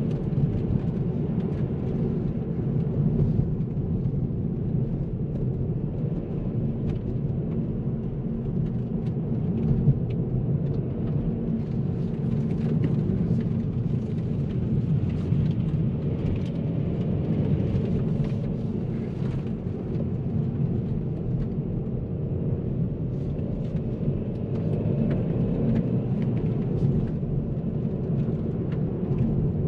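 Kia Ceed SW's 1.5 T-GDI turbocharged petrol engine and tyre-road rumble while driving, a steady low drone without sharp revving.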